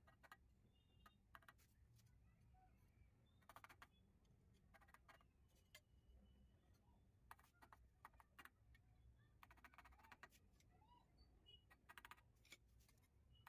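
Very faint taps of a trowel's wooden handle bedding ceramic tile pieces into wet mortar, coming in several short bursts of quick taps, the last about twelve seconds in.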